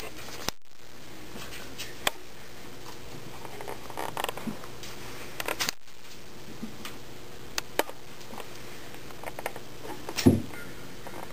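Kittens moving about, making scattered light taps and scratchy clicks, with one louder thump about ten seconds in.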